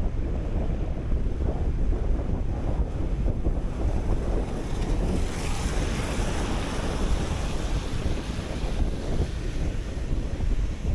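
Wind buffeting the microphone of a moving bicycle, a steady heavy rumble. A hiss of tyres on the wet, slushy road swells about five seconds in and fades by about seven.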